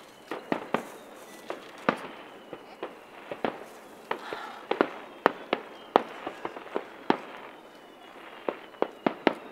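Fireworks display: a fast, irregular run of sharp bangs and crackles from bursting shells, thickest through the middle, with a short lull about three-quarters of the way in before a few more cracks near the end.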